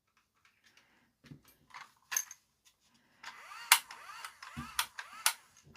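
Plastic clicks from handling a toy bubble gun. About three seconds in, its small battery motor starts running with a faint whir, with further sharp clicks over it.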